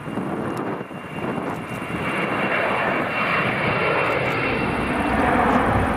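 Embraer 195 twin-engine jet airliner passing overhead at climb power after takeoff, its two GE CF34-10E turbofans making a dense jet roar that grows louder toward the end. A thin high whine fades out past the middle, and a lower tone falls in pitch as the jet goes by.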